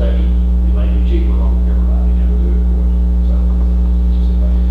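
Steady electrical mains hum on the audio feed, low and unchanging, with faint indistinct voices murmuring under it.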